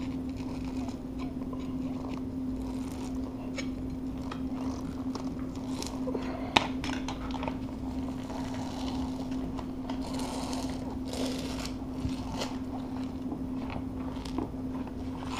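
Knife blade scraping and prying under a glued-down vinyl floor plank, with scattered small clicks and one sharp click about six and a half seconds in, as the plank is worked loose from its adhesive. A steady low hum runs underneath.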